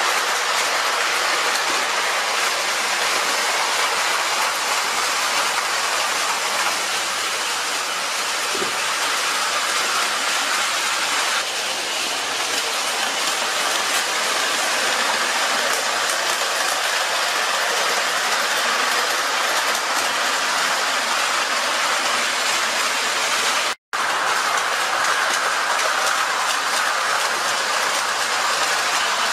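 Tinplate O-scale model trains running on metal track: a steady rattling rumble of wheels. It cuts out for an instant about 24 seconds in.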